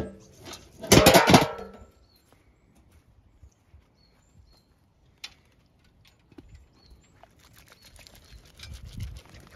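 A galvanised metal feed bin clatters and rings briefly about a second in. Then faint bird chirps, and near the end soft crunching as a sheep eats feed pellets from a hand.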